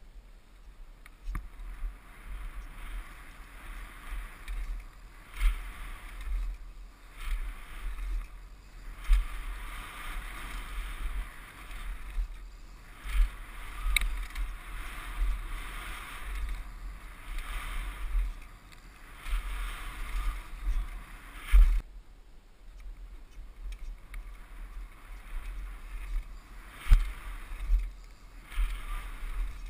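Mountain bike descending a dirt trail, heard from a helmet camera: wind buffeting the microphone, tyres rolling on dirt and gravel, and the bike rattling, with sharp knocks over bumps, the loudest about three-quarters of the way through and near the end.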